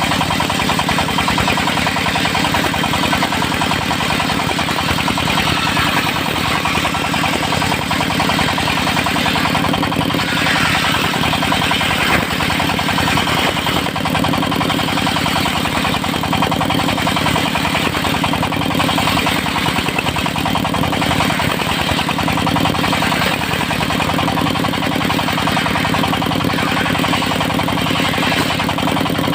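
Engine of a portable circular sawmill running steadily under load, with the hiss of the circular blade cutting teak swelling several times.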